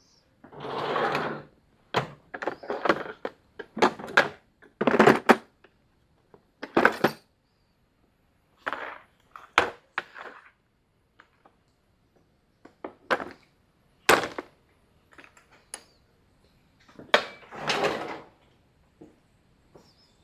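Metal hand tools clinking, knocking and rattling in irregular short bursts, with a few longer rattles about a second long, as wrenches are handled and sorted.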